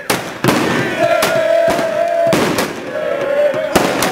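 Firecrackers going off in several sharp bangs, the loudest near the end, over a crowd cheering with long held shouts.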